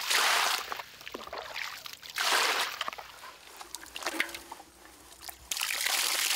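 Water sloshing and splashing in a gold-panning pan swirled by hand, in surges about two seconds apart, then a longer stretch of sloshing near the end.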